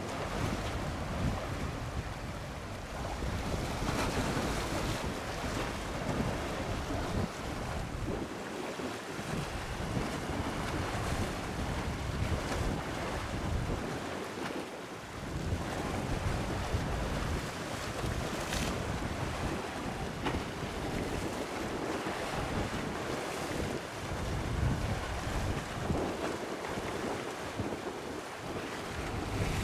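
Wind gusting across the microphone over the wash of sea waves: a rushing noise that swells and drops every few seconds, heaviest in the low rumble.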